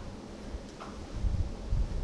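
Soft low thumps of footsteps as a person turns around in place, over a faint steady room hum.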